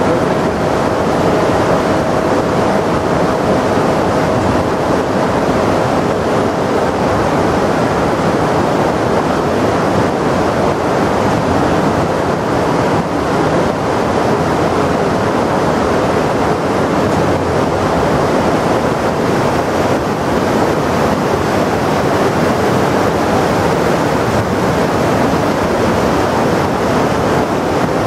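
Fast mountain torrent rushing over rocks: a loud, steady, unbroken rush of water. A faint steady hum sits over it for the first several seconds.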